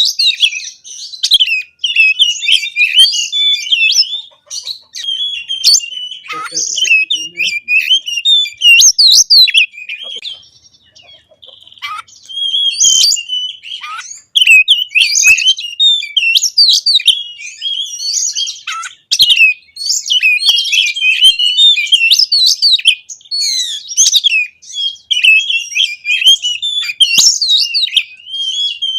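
Oriental magpie-robin (kacer) singing a rapid, varied song of whistles and chattering notes, phrase after phrase with hardly a break, and a short lull about ten seconds in.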